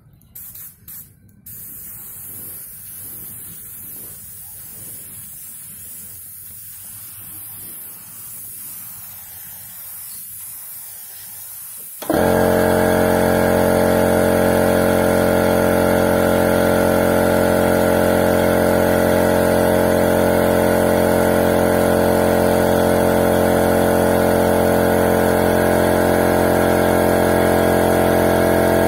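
Gravity-feed spray gun hissing as it sprays finish onto a wooden cabinet panel. About twelve seconds in, a much louder steady mechanical hum with a fixed pitch starts suddenly and runs on: the air compressor feeding the gun kicking on.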